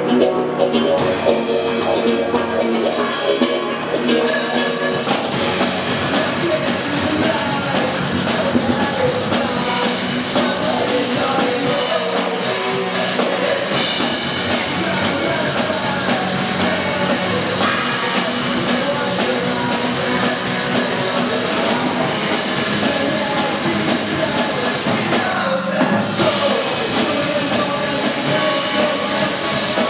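Rock band playing live: distorted electric guitars with a drum kit, the drums and cymbals joining in a few seconds in, with a sung vocal over the band.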